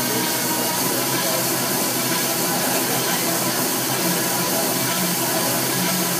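Rottler H75A CNC honing machine honing a cylinder bore of a GM small-block engine: a steady, even hiss of the hone at work, with a faint hum.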